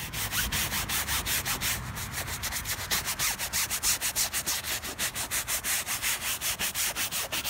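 A scrub brush scrubbing a wet vinyl convertible top with cleaner, in quick even back-and-forth strokes of about five a second.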